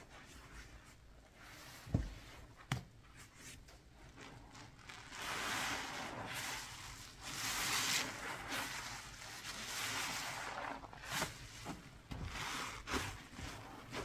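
A wet cleaning paste being worked by hand: long swells of rubbing and scraping, after two sharp knocks about two seconds in.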